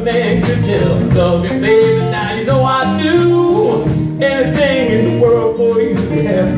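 Live band playing a blues song: electric guitars, electric bass and drum kit.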